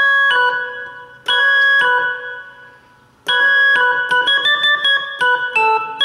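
Korg OASYS keyboard playing a single-note cumbia melody line. Two held notes fade out, then a quicker run of notes starts about three seconds in.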